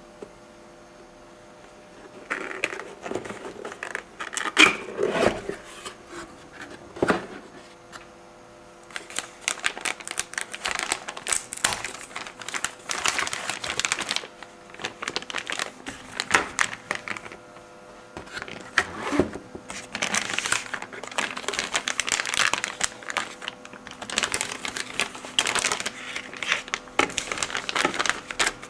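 Irregular crinkling and crackling, starting about two seconds in and coming in uneven bursts, over a faint steady hum with a few constant tones.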